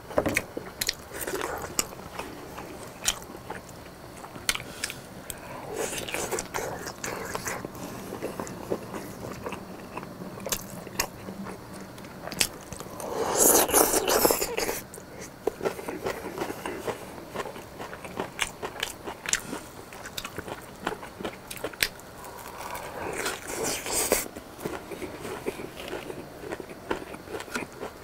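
Close-miked biting and chewing of freshly fried, sauce-smothered pork cutlet (tonkatsu), with crunchy bites and small clicks throughout. One louder noisy burst comes about halfway through.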